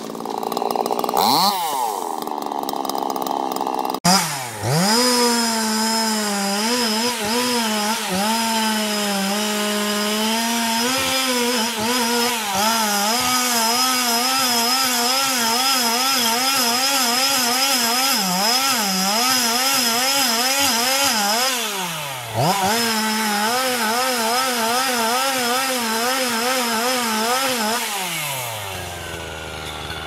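Chainsaw running at high revs while cutting through the base of a large tree trunk. Its engine pitch wavers up and down as the chain loads in the cut. About 22 seconds in the pitch dips sharply and picks back up, and near the end it falls away as the throttle is released.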